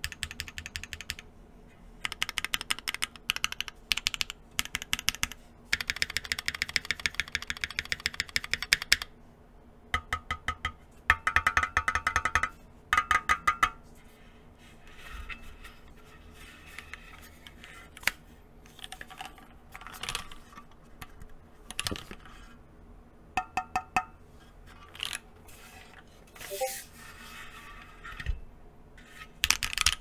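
Long stabilized keys on a Keychron Q1 aluminium mechanical keyboard, with stock Keychron-lubed stabilizers, pressed over and over, clacking. Fast runs of presses fill the first half, and after that single presses come scattered.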